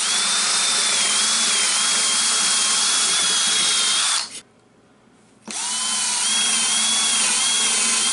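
Cordless drill boring holes through a wooden board: one run of about four seconds, a pause of about a second, then a second run, the motor whine wavering a little as the bit bites into the wood.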